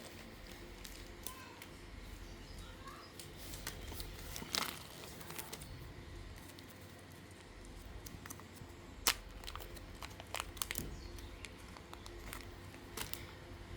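Hands working super light clay with small plastic tools: scattered light clicks and rustles, with sharper clicks about four and a half and about nine seconds in.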